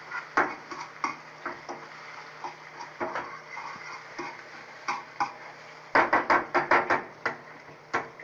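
A utensil tapping and scraping in a frying pan as scrambled eggs are stirred and broken up. Scattered single taps, then a quick run of about eight taps about six seconds in.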